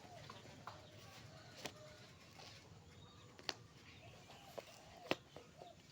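Faint bird calls in the background, broken by a few sharp clicks, the loudest about five seconds in.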